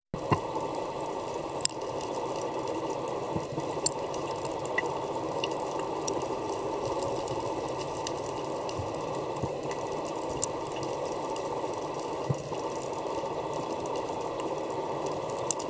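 Underwater ambience picked up by a submerged camera: a steady, muffled rush of water with scattered sharp clicks and pops.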